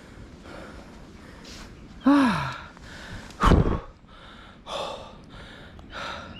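A man breathing hard and panting, with a falling groan of effort about two seconds in and a loud blow of breath on the microphone about a second later: out of breath from climbing a steep hill.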